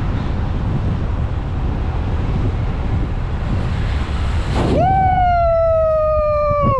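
Bicycle brake squealing from about two-thirds of the way in: one high pitch that sinks slowly as the bike slows, then stops abruptly. Wind rushes over the microphone throughout.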